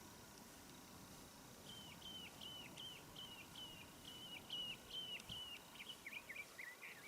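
A bird singing faintly over a steady low hiss: a run of short repeated notes, about three a second, each dropping in pitch, breaking into a quicker jumbled twitter near the end.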